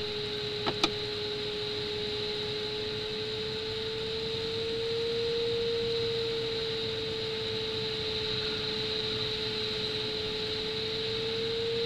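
A glider's electronic variometer giving a steady tone whose pitch drifts slowly up and down with the climb or sink, over the steady hiss of air rushing past the cockpit. A short click about a second in.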